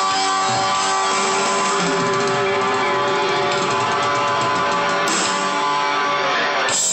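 Hard rock music led by electric guitar, with chords held and ringing.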